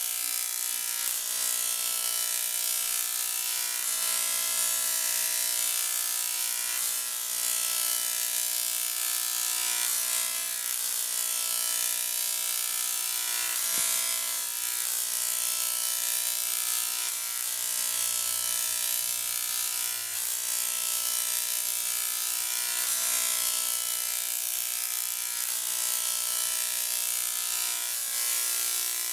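Jacob's ladder high-voltage spark arcing between two metal electrodes, a steady electrical buzz and crackle with a constant hiss over it. Slight surges come every second or two.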